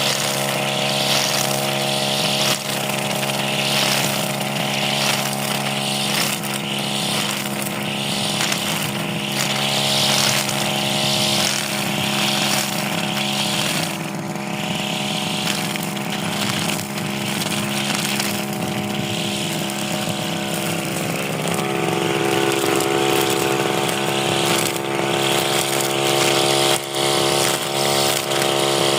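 Stihl two-stroke brush cutter engine running steadily at high revs while cutting grass, its note shifting about twenty seconds in.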